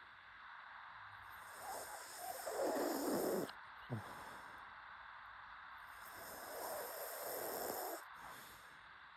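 Pug snoring in its sleep: two long snoring breaths about four to five seconds apart, with a brief short sound just after the first.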